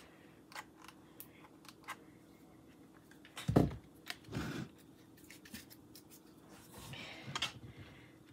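Crafting handling noises: small clicks and the crinkle of a foil cupcake liner. About three and a half seconds in, a mini hot glue gun is set down on the cutting mat with a thump, followed by a softer knock. Light scraping comes near the end as the cupcake is pressed onto the styrofoam ball.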